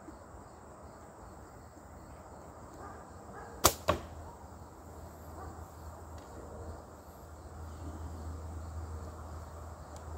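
A compound bow shot: a sharp snap of the string and limbs on release, followed about a quarter second later by the thud of the arrow hitting the target.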